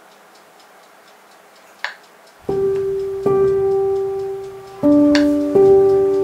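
Background music: a faint steady ticking with a single sharp click, then slow, sustained keyboard notes come in about two and a half seconds in and are struck again several times.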